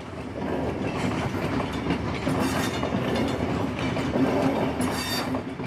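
Rumble and wheel clatter of a moving train, steady throughout, with a low hum running under it.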